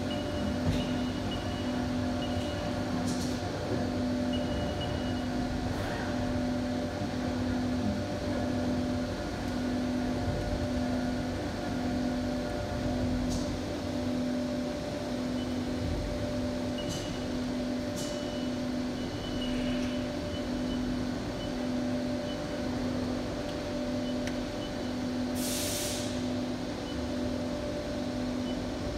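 Five-axis CNC machining centre running a dry simultaneous 5-axis chamfering pass with a chamfer mill, heard through the closed enclosure door. There is a steady machine hum with a low drone that pulses about once a second and a few light clicks, and a short hiss near the end.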